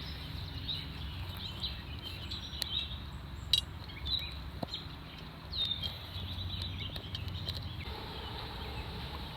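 Outdoor ambience: scattered short, high bird chirps over a steady low background hum, with a couple of small clicks.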